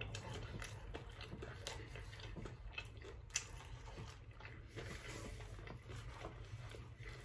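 Faint chewing of a soft bite of French toast, scrambled egg and bacon, with small mouth clicks and one sharp click a little over three seconds in.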